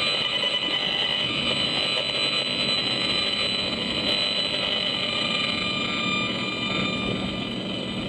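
Audio output of a Gigahertz Solutions HFE 35C RF analyser's loudspeaker: a steady, high electronic buzz made of several tones, the meter's audible rendering of pulsed microwave signals from nearby cell-tower antennas. Car road noise runs underneath.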